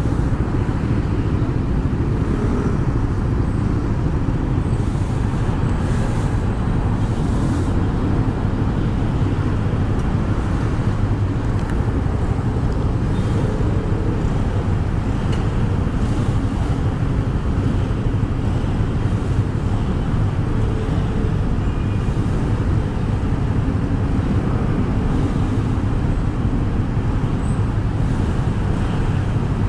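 Steady rumble of road traffic and engine noise heard from a Yamaha NMAX scooter riding in heavy traffic, even throughout with no sudden events.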